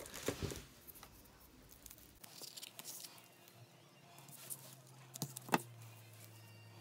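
Quiet handling of card stock: soft paper rustling and a few light taps, with faint tearing as double-sided foam tape is peeled and pressed on.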